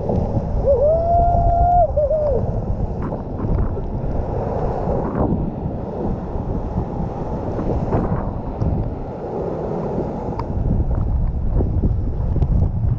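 Strong wind buffeting an action camera's microphone, mixed with the rush of water under a kitesurf board riding over chop. About half a second in, a whistling tone rises, holds for about a second and a half, then falls away. A few short clicks come over the steady noise.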